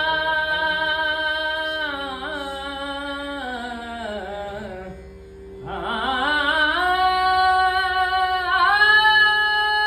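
A man singing the slow opening alaap of a Marathi devotional abhang on an open vowel, over a steady drone note. Long held notes slide gradually down, there is a short breath about five seconds in, and then the voice climbs back up and holds a high note.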